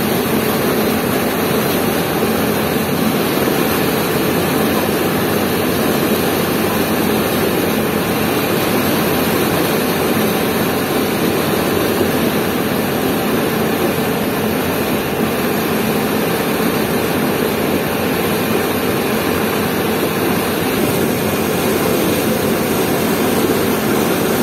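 Boat engine running steadily as the boat travels, with an even, unchanging level throughout.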